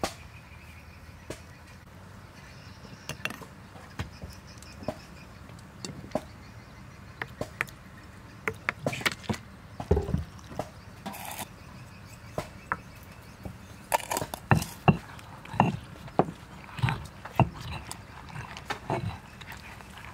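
Scattered clinks and knocks of spoons and jars as ingredients go into a stone mortar, then, over the last several seconds, a stone pestle pounding chili paste in the stone mortar with irregular, louder knocks.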